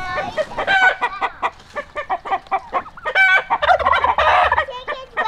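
Backyard poultry flock calling, several birds at once in short overlapping calls, growing louder and denser past the middle.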